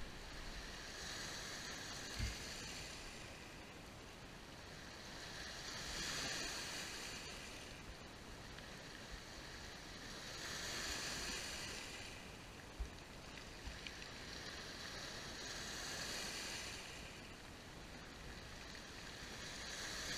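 Small sea waves breaking and washing back over a pebble beach, swelling about every five seconds. Two brief low thumps come through, about two seconds in and past the middle.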